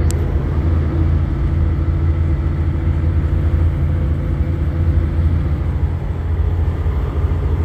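Semi-truck's diesel engine running steadily at highway speed, heard from inside the cab as a low drone with road noise.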